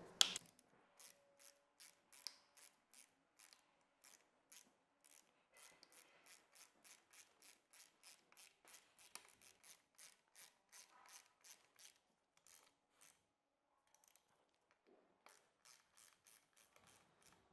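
Faint ratcheting clicks of a hex-bit ratchet driver tightening the handlebar clamp bolts on a scooter stem, about two to three clicks a second, pausing briefly before a few more clicks near the end.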